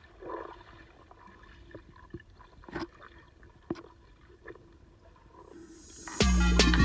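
Muffled water sound picked up by a camera held underwater: low sloshing with a few faint clicks. Loud music with a beat comes in near the end.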